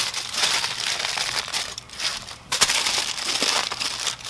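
Aluminium foil crinkling and crumpling as hands fold and press it tightly around a brisket, with a short lull about two seconds in before a sharp crackle.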